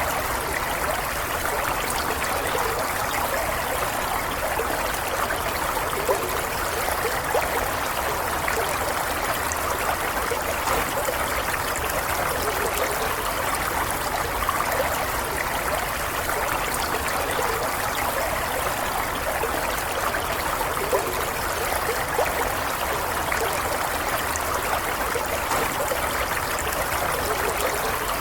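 A stream running steadily, its water trickling and gurgling without a break.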